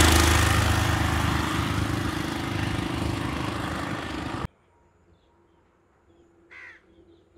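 A small engine running steadily, slowly fading, then cut off abruptly about four and a half seconds in; after that it is nearly quiet except for one short high chirp near the end.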